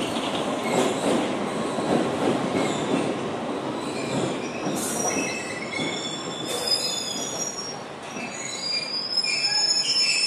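London Underground Piccadilly line tube train (1973 Tube Stock) pulling into the platform: the rumble of wheels on the rails, then high-pitched wheel squeals from about four and a half seconds in as it slows to a stop.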